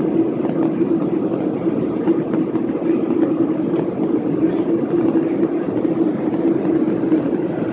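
Steady cabin noise of a Boeing 737-800 in flight, heard from a seat over the wing: the CFM56-7B jet engines and rushing airflow make an even drone with a steady low hum.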